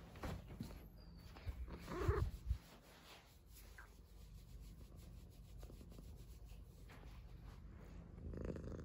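Fur rubbing against carpet and a hand as a cat rolls on its back and is petted, with a louder rustling scrape about two seconds in and faint scratching after.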